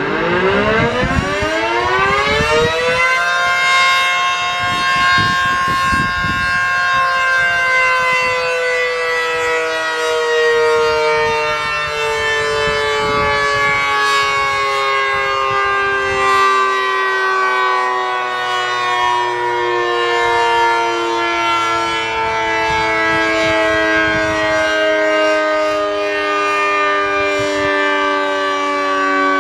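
ACA Screamer S-10 outdoor warning siren winding up fast from low to full pitch in about three seconds. It then holds a steady several-note wail whose pitch slowly sinks. The unit's top lid is broken out and sucked down and its motor is reverse-wired, so the rotor gets little air and winds up faster than normal.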